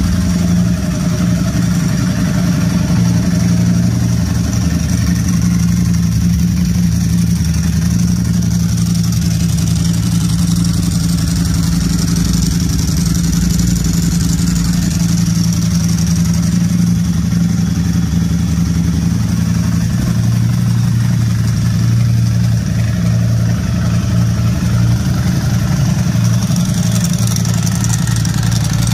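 Ducati Streetfighter V4 SP's V4 engine idling steadily with its STM dry clutch fitted, the dry clutch rattling over the idle exhaust note. The low note shifts slightly about twenty seconds in.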